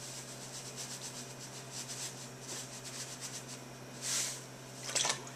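Washing soda powder pouring from its cardboard box into a measuring cup: a faint granular hiss, with a brief louder rush about four seconds in and a few light clicks near the end.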